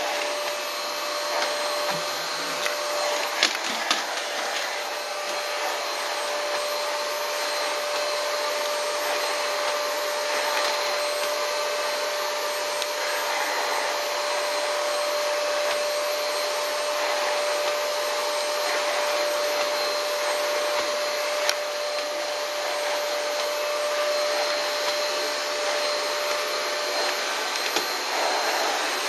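Hair-removal vacuum cleaner running steadily over a carpet, a constant rush of suction with a thin, steady motor whine, and a few faint clicks as it picks up hair and debris.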